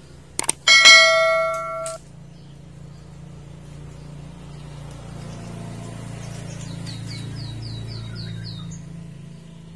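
Subscribe-button sound effect: a few mouse clicks, then a ringing bell chime that stops after about a second. Around the middle, a bird gives a faint run of about seven quick high chirps over a low steady hum.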